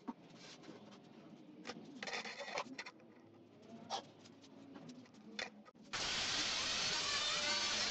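Galvanized steel sheet being handled and shifted on a workbench: scattered light rustles, taps and clanks. About six seconds in, a loud continuous sound starts abruptly.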